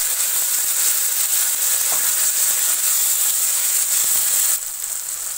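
Chopped onions with freshly added tomatoes sizzling in hot oil in a kadai: a steady hiss that drops off sharply about four and a half seconds in.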